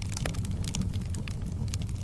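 Wood fire burning in a fireplace: quick, irregular crackles and pops from the logs over a steady low rumble of the flames.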